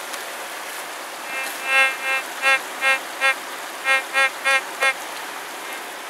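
White's Goldmaster GM3 metal detector sounding its target tone, about ten short, same-pitched beeps starting about a second in, as a scoop of gravel is swung back and forth over the search coil: the target is in the scoop. A steady hiss runs underneath.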